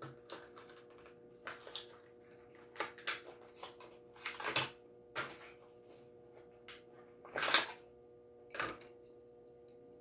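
A die-cast toy car's plastic and card packaging being handled and opened: scattered short clicks and crinkles, some in quick pairs, the loudest about three-quarters of the way through.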